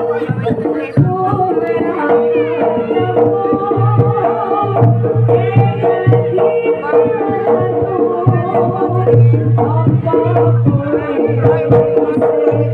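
Live Javanese jaranan gamelan music: kendang hand drums beating under a steady held note, with a winding higher melody over them.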